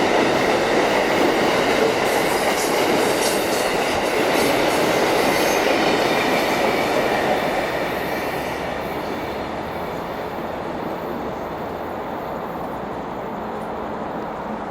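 Amtrak passenger train of Amfleet I coaches rolling slowly past, wheels clicking over the rail joints with a faint squeal. About halfway through the sound eases off and stays lower as the train moves away.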